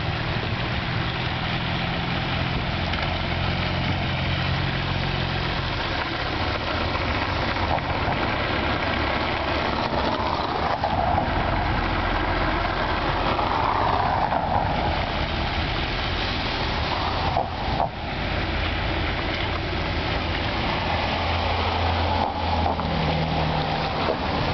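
Road traffic driving past on a snowy road, steady wind noise over it: engine hum of cars and a pickup truck going by close at hand, with a louder pass about halfway through.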